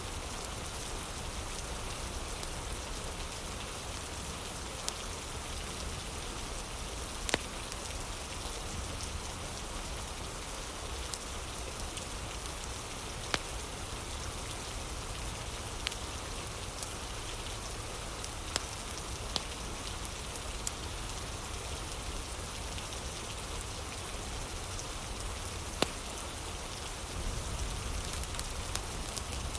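Steady rain falling, an even hiss, with scattered sharp pops and clicks; near the end the pops come more often as a wood fire's crackling comes through.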